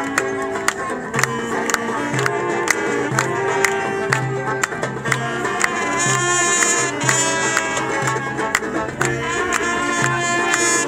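Upbeat music with a steady percussive beat, a repeating bass line and a sustained melody over it.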